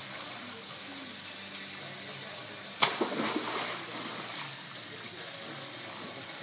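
A child plunging into a swimming pool: one sharp splash about three seconds in, then a second or so of churning water as she swims, over a steady hiss of water spilling over the pool's edge.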